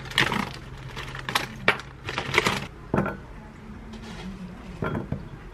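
Frozen blueberries poured from a plastic bag rattle against a metal mesh strainer in several short bursts, followed by a few sharper clicks.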